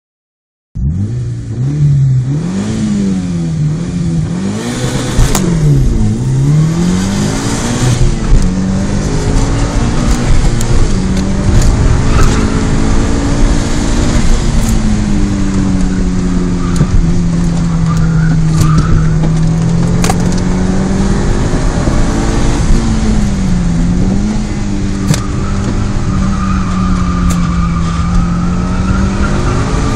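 Mitsubishi Lancer Evolution IV RS's turbocharged four-cylinder engine, heard from inside the cabin while driven hard on a track, starting about a second in. The revs climb and drop sharply several times in the first few seconds, then hold a long steady pull, with another dip and rise near the end.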